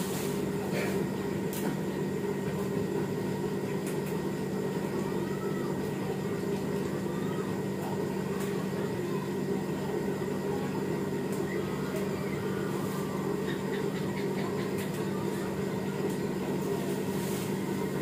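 Washing machine spin-drying: a steady, even mechanical hum, with a few light clicks and rustles of a plastic bag being handled.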